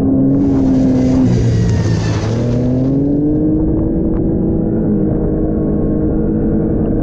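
Arctic Cat snowmobile engine running as the sled is ridden: the engine note drops off about a second in, then climbs steadily again as the throttle is reopened. A hiss rides over it for about two and a half seconds near the start.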